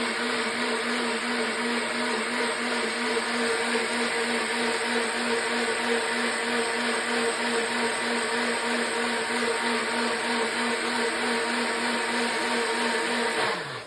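Countertop blender running steadily at full speed, puréeing fruit, vegetables and herbs with water into a juice. It switches off near the end and the motor winds down with a falling hum.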